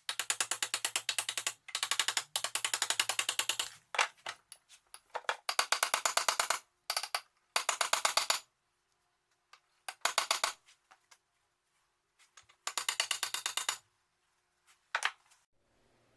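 Welder laying short tacks and stitches of weld on steel swing arm tube: bursts of fast, even crackling a second or two long, each with the welder's low hum underneath, broken by pauses of a few seconds.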